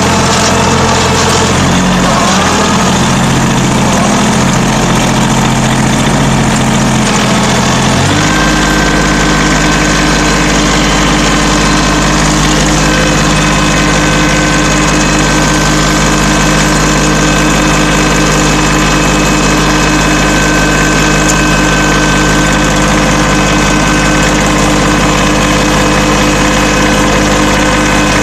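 Small engine of a motorized garden cultivator running steadily as it pulls its tines through the soil. About eight seconds in the engine note shifts suddenly and then holds an even, unchanging pitch.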